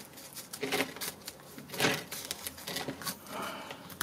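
Light, scattered clicks and scrapes of a wooden stick pushing small drainage pebbles around a cactus in a plastic pot, the loudest scrape about halfway through.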